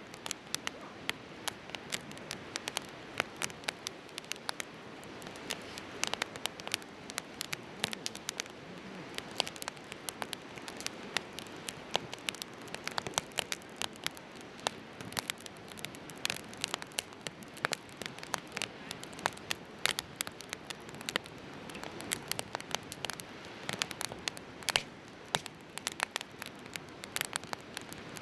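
Firewood burning in a Coleman Fire Disc fire pit, crackling with frequent irregular sharp pops and snaps over a steady hiss.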